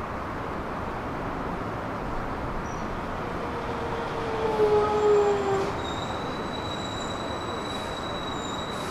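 Hankyu electric train at a station: a steady rumble of running noise, a wavering squeal that falls slightly in pitch and peaks about four to five seconds in, then a thin, steady high whine.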